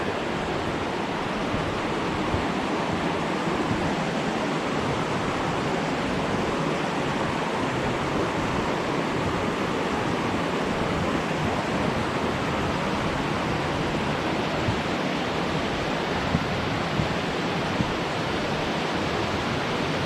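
Steady rushing of a waterfall and its stream running full, an even wash of water noise with no break.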